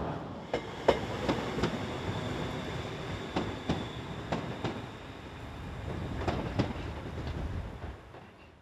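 Turbostar diesel multiple unit running over rail joints and pointwork: a steady rumble with wheel clicks coming in pairs, the clickety-clack of bogies crossing joints, fading away near the end.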